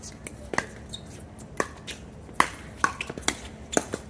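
Pickleball doubles rally: hard plastic paddles striking a perforated plastic ball in quick exchanges at the net, a run of sharp pocks about one every half second to second, with fainter ticks between them.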